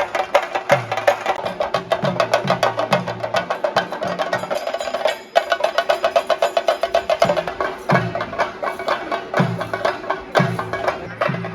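Theyyam ritual percussion: chenda drums beaten in a fast, dense roll, with deeper drum strokes falling in a repeating pattern and a steady held note underneath. The playing breaks off briefly about five seconds in, then carries on.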